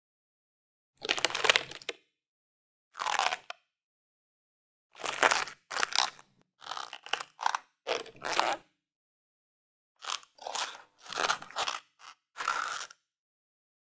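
A series of short sound effects, more than a dozen noisy bursts each under a second long, set apart by dead silence and bunched more closely in the second half.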